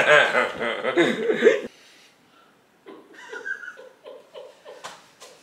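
A man laughing heartily, cut off abruptly under two seconds in. About a second later come fainter, short broken laughs.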